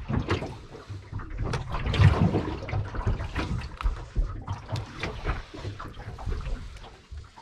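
Water lapping and slapping against a small boat's hull, with irregular knocks and handling noise from a fish being held down on the carpeted deck.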